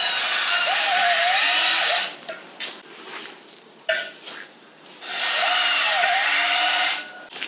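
A copy-DeWalt 24V cordless drill/driver running in two bursts of about two seconds each, its motor pitch wavering as it runs. Between the bursts come a few short clicks and knocks.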